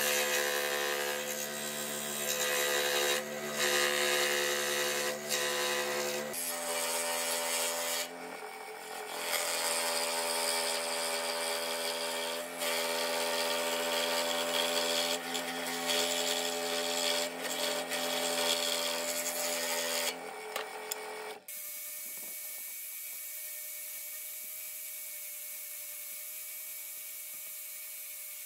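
Scroll saw running and cutting through a pine board: a steady mechanical hum with the rasp of the blade, broken briefly a few times as the cut pauses. About twenty-one seconds in it stops, and an angle grinder with a sanding disc runs with a steady, quieter high tone as it sands the curved piece.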